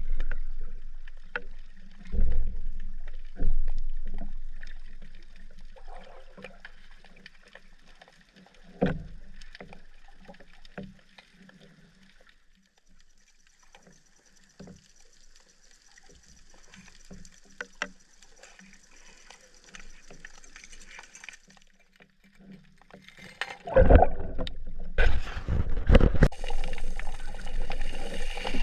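Water noise picked up by a camera in the sea, with scattered knocks and thumps, then loud, irregular splashing starting a little before the end.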